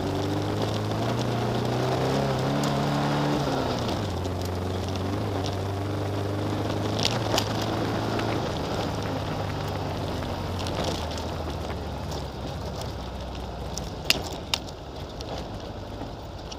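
Engine of an off-road vehicle driving on a gravel dirt track. Its pitch climbs for the first few seconds, then drops sharply, as at a gear change or easing off the throttle, and holds steady. Stones and gravel tick and knock under the tyres, and the engine grows quieter near the end.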